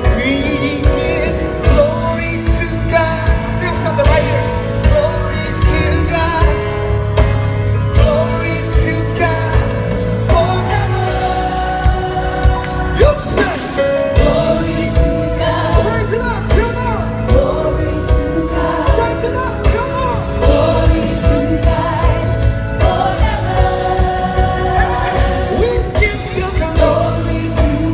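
Live gospel music: a band with a steady drum beat and sung voices, a choir among them.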